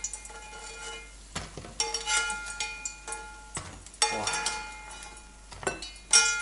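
Metal spoon scraping and knocking against a frying pan as fried dumplings are scooped out of it, about eight knocks, each leaving a short metallic ring.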